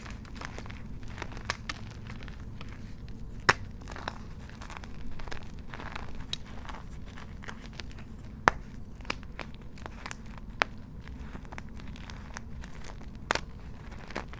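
Dyed and reformed gym chalk being crumbled and crushed by hand: a scatter of small dry crackles with a few louder sharp snaps spaced several seconds apart, over a steady low hum.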